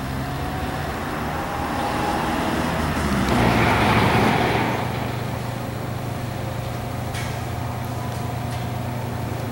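Steady low background rumble with a hum, swelling into a louder rush for about a second around four seconds in.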